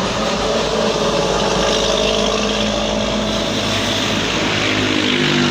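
A motor vehicle engine running close by, its pitch dropping in steps over the last second or so.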